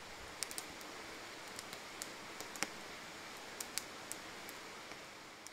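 Split firewood burning in a fire bowl: a soft steady hiss with scattered sharp crackles and pops, the loudest pop about two and a half seconds in.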